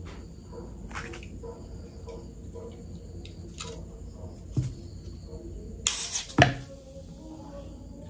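Aluminium soft-drink can handled with small clicks of fingernails on the can and its tab, then cracked open about six seconds in: a short loud hiss of escaping carbonation, ending in a sharp click.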